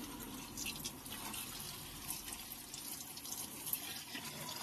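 Water running steadily into the wash tub of a semi-automatic washing machine as it fills, with small irregular splashes.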